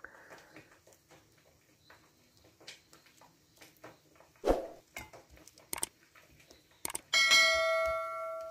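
Faint scrapes and taps of a spoon spreading chocolate mixture over biscuits in a dish, with a knock about halfway. Near the end a couple of clicks are followed by a bell-like chime that rings out and fades over about a second and a half: the sound effect of a subscribe-button animation.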